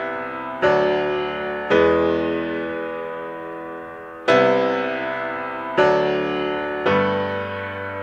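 Background music: sustained keyboard chords, a new chord struck every one to two seconds and left to ring and fade.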